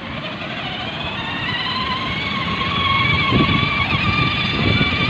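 Electric drive motors of a battery-powered ride-on toy jeep whining as it drives, the thin whine rising a little in pitch over the first couple of seconds and then holding steady, over a low rumble.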